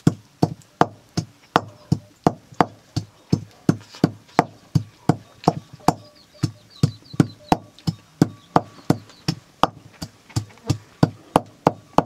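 Wooden pestle pounding food in a metal bowl: a steady run of knocks, about three strokes a second.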